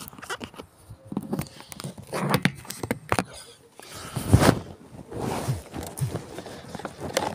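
Handling noise from a phone being set down and plastic engine parts being moved: irregular knocks, rustles and scrapes, with one louder thump about four seconds in.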